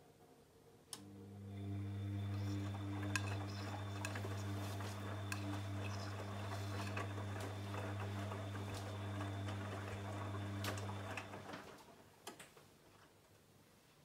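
Bosch VarioPerfect WAQ283S0 washing machine turning its drum during a Cottons 40 wash: about a second in the motor starts with a click and runs with a steady low hum while the wet laundry sloshes and clicks inside. It stops after about ten seconds, with a click or two as the drum comes to rest.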